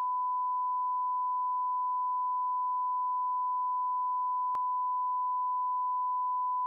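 A steady test-tone beep, the reference tone played with colour bars. It holds one unbroken pitch throughout, with a faint click about four and a half seconds in.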